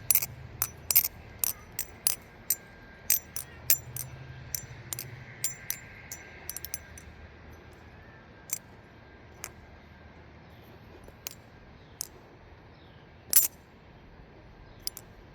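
Morph Turbid V2 balisong with titanium channel handles being flipped: sharp metallic clacks as the handles swing around and knock together. The clacks come quickly, about two a second, for the first half. After that they are occasional, with one louder clack near the end.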